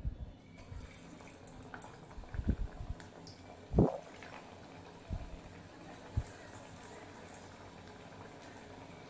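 Dal vada (lentil fritter) patties deep-frying in hot oil: a steady sizzle of bubbling oil, with a few soft low knocks scattered through it.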